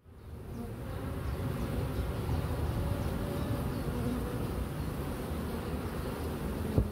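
Honeybees buzzing in a dense, steady hum as many fly and crowd at a hive entrance, fading in at the start. A single short knock near the end.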